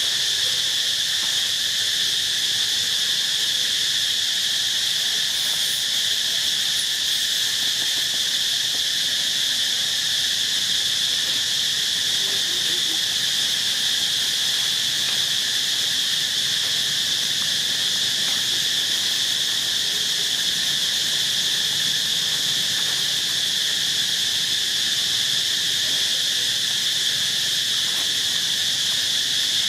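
A steady, unbroken high-pitched insect chorus droning without change, with a fainter lower band beneath it.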